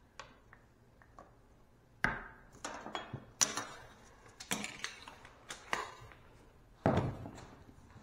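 Hand tools handled on a wooden workbench: a run of light metallic clinks and knocks starting about two seconds in, with a heavier knock near the end.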